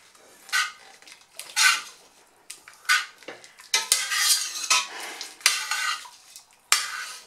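A metal spoon scraping and knocking against the inside of a stainless steel pot while mashing part of the cooked black beans in their liquid. The strokes are irregular, roughly one a second, with a longer stretch of scraping about halfway through.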